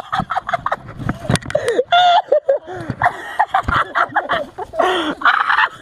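A person laughing hard in short, choppy, breathy bursts, with many sharp clicks among them.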